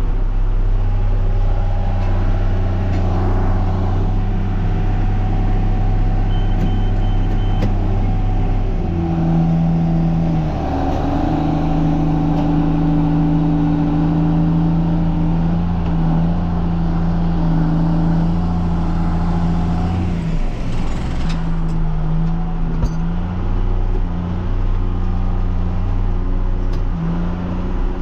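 Tractor engine running steadily under load, its pitch shifting about nine seconds in and again around twenty-one seconds.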